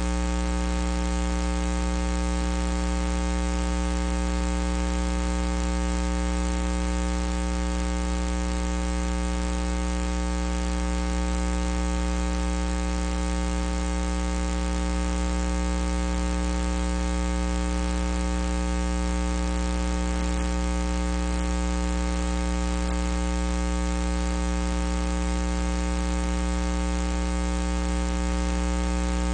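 Steady electrical hum with a stack of even overtones over a hiss, unchanging throughout, drowning out any sound of the bout.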